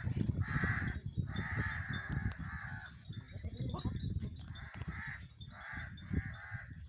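Crows cawing: a series of short, harsh caws, one after another, over a low rumbling noise.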